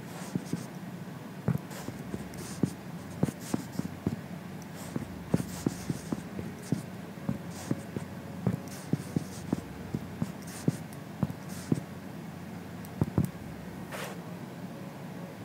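Typing on an iPad's on-screen glass keyboard: irregular taps, about two a second.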